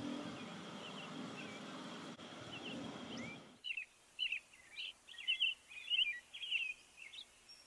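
Milky drink pouring from a jug into a stemmed glass, a steady rushing pour that cuts off about three and a half seconds in. Then small birds chirp in quick, short calls.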